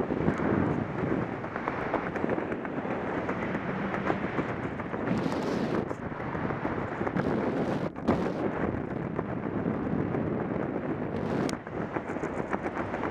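Rushing air from wingsuit flight buffeting the microphone: a heavy, steady rush of wind noise with a few brief dips in level.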